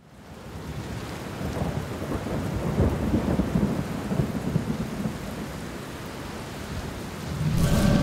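Thunderstorm sound effect: steady rain with low thunder rumbles, fading in from silence at the start. It swells near the end as a few held tones come in.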